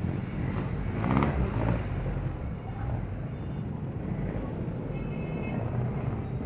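Steady engine and road noise from riding a Yamaha Aerox 155 scooter through slow city traffic, mixed with the running of other motorcycles and vehicles alongside. The sound swells briefly about a second in.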